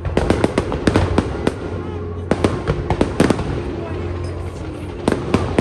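Fireworks display going off: quick runs of sharp bangs and crackles in the first second and a half, a short lull, another cluster from about two to three and a half seconds in, and a few more bangs near the end.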